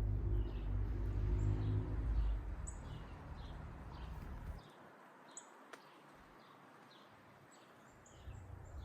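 A small bird chirping over and over in short, high notes. A low rumble underneath fades out about halfway through.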